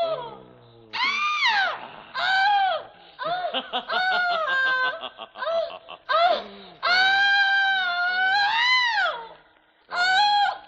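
High-pitched human screams and shrieks: a few long wails that rise and fall in pitch, with shorter broken cries between them and a final short shriek near the end.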